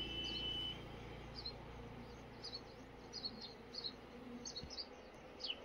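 Faint hum of an open Asian honeybee (Apis cerana) colony, with small birds chirping again and again in short high descending notes. A brief high steady whistle sounds at the very start.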